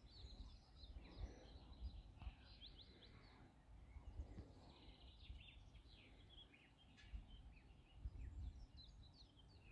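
Faint songbirds chirping: many short high chirps, some sliding down in pitch, throughout, over a low uneven rumble of wind on the microphone.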